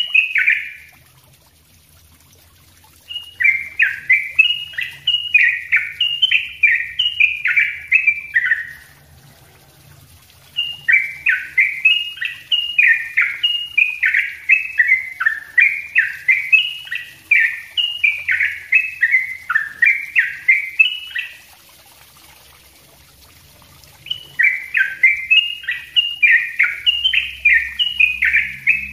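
A caged trucuk, a bulbul, singing its rapid, dense song. It sings in bouts several seconds long, each a quick run of sharp, downward-slurred notes, with short pauses between bouts.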